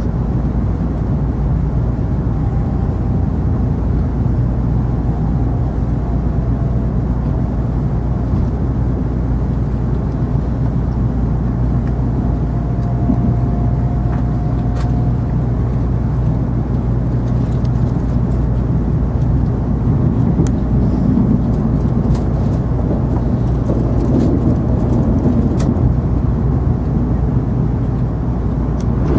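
Steady low rumble of an N700 series Shinkansen train running, heard from inside the passenger cabin, with a faint whine around the middle.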